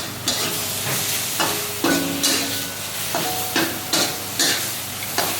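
Pad Thai noodles stir-frying in a hot pan: a spatula scraping and tossing them about twice a second at an uneven beat over a steady sizzle.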